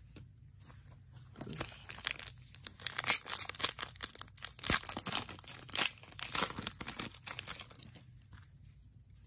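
Shiny foil wrapper of a Panini Chronicles football card pack being torn open and crinkled by hand: a run of sharp crackles and rips that starts about a second and a half in and stops about eight seconds in.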